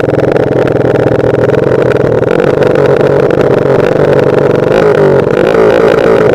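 Honda Supra motorcycle's single-cylinder four-stroke engine running loudly through an aftermarket HMR racing exhaust, in a mostly steady note that wavers slightly about five seconds in.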